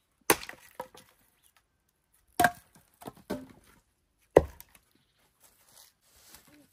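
Axe blows splitting firewood: three hard chops about two seconds apart, each followed by a few lighter wooden knocks.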